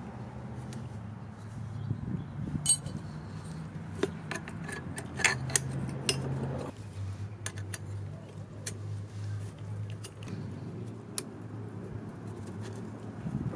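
Light metallic clicks and clinks as the rear shock spring and its retainer on a Husqvarna FE450 dirt bike are handled and shifted by hand during a spring swap. Under them runs a steady low hum that drops slightly in pitch about halfway through.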